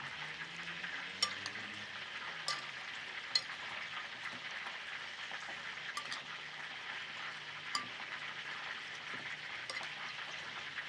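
Whole fried mojarras (fish) sizzling steadily in hot oil. Over the sizzle, a metal spoon clinks against a ceramic bowl several times as a salad is stirred.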